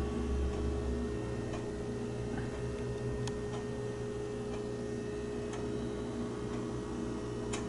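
Faint, regular ticking of a wall clock over a steady low hum.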